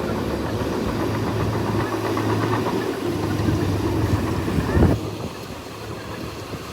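Bulldozer's diesel engine running under load, with a rattling clatter over a steady low hum. A single loud thump comes near the end, and the engine then runs quieter.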